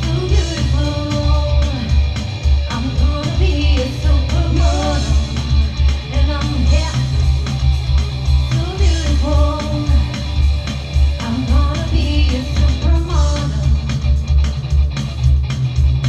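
Live rock band playing a song: singing over bass guitar, a drum kit and guitar, with a heavy, steady bass.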